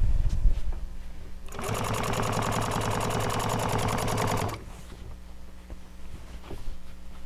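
Juki DNU-1541S industrial walking-foot sewing machine stitching a seam in one short run of about three seconds. It starts about a second and a half in and stops suddenly. Quiet fabric-handling sounds follow as the cloth is repositioned.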